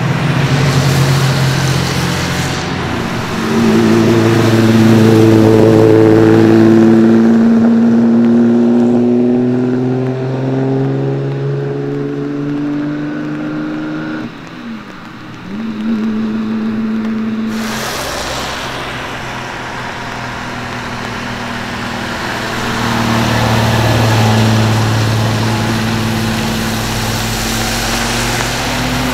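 High-performance car engines revving and accelerating, with the pitch holding, rising and falling. Near the middle the engine note dips and sweeps down and back up, and the sound changes abruptly a few seconds later as another car is heard.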